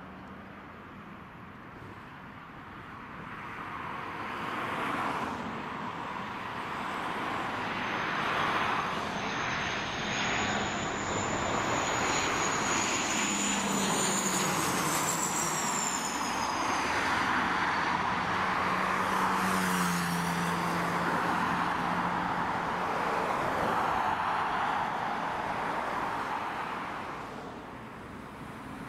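Bombardier Dash 8 Q400 turboprop on landing approach passing low overhead. Its propeller and engine drone swells from a few seconds in and holds loud, with a high whine that falls in pitch as the aircraft goes over, then dies away near the end.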